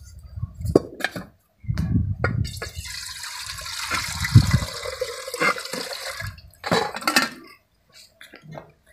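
A few knocks of metal pots being handled, then water poured from a small metal bowl into a steel cooking pot for about three seconds, with a few more clinks of metal afterwards.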